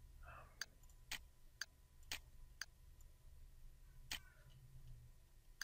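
Computer mouse clicking quietly while keyframes are set: six sharp clicks, five about half a second apart and a last one about four seconds in, over a faint low hum.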